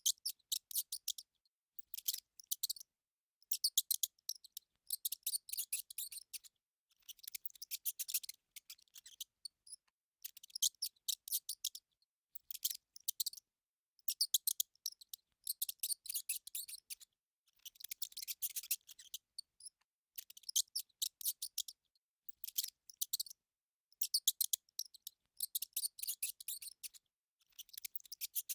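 Rat sound: bursts of rapid, high clicking, each lasting about a second, repeating with short pauses between.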